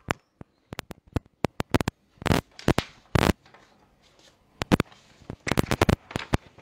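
Writing on a board: irregular sharp taps, with a few longer scratchy strokes as words are written out.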